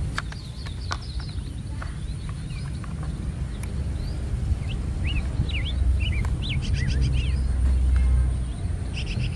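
Small birds chirping in short, quick calls, busiest in the middle of the clip, over a steady low rumble that swells near the end. A few light plastic clicks come from toy truck wheels being pressed onto their axles.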